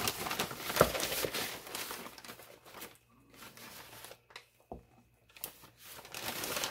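Plastic bag of powdered sugar crinkling as a measuring cup is scooped into it, with one sharp knock about a second in. It goes quieter in the middle with a few small clicks, then crinkles again near the end.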